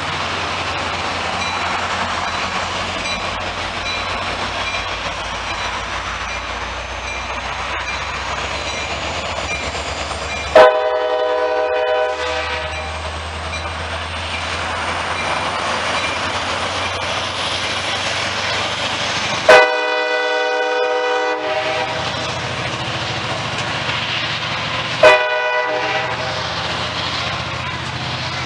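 Diesel train horn blowing two long blasts and then a short one, the start of the long-long-short-long grade-crossing signal, over the steady rumble of a train.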